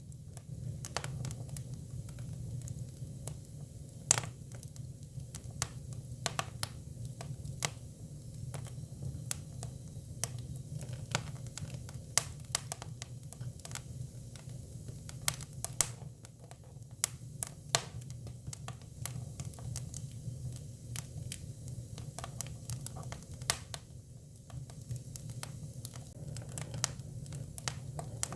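Hinoki cypress firewood burning: irregular sharp pops and crackles, a few louder snaps among them, over a steady low hum.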